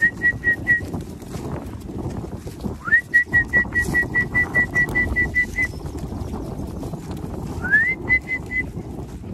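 Whistled runs of short high pips on one steady pitch, about five a second: a brief run, a longer run of a dozen or more pips, then another brief run, the last two each opening with a quick rising glide. Low wind rumble underneath.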